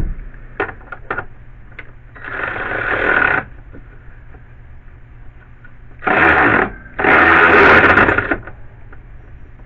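Cordless drill with a socket bit driving in a wiper-housing bolt. It runs three times: once about two seconds in, then a short burst and a longer run from about six seconds. Small clicks and knocks come between the runs.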